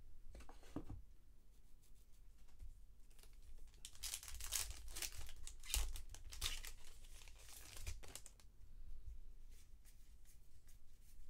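A baseball card pack's foil wrapper being torn open and crinkled by hand, in a run of crackling tears about four to eight seconds in.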